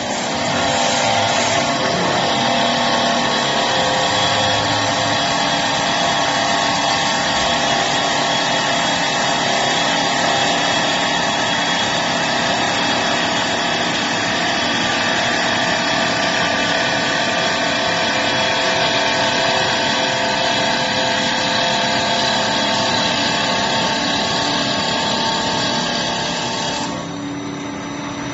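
CNC wood turning lathe running, turning a wooden workpiece: a steady, loud machine noise with several held tones. About a second before the end it drops away, leaving a quieter, lower hum.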